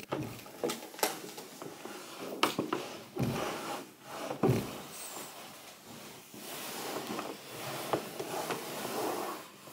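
Cloth wiping across a wooden tabletop: uneven rubbing with a few light knocks.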